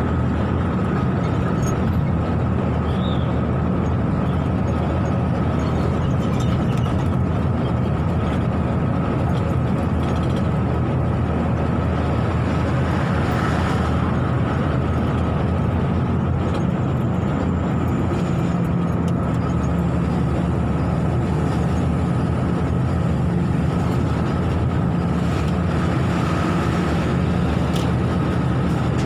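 A vehicle driving at a steady speed: a continuous engine and road-noise drone, with a thin steady whine above it.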